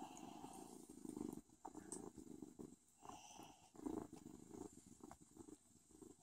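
Kitten purring softly close to the microphone, a rough low purr that comes in phases of about a second, with a few faint clicks.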